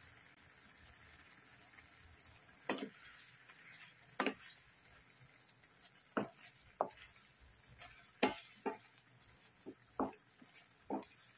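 Flat wooden spatula knocking and scraping against the pan while stirring shrimp in a thick butter-garlic sauce that has been reduced. There are about nine short knocks at irregular intervals, starting a few seconds in.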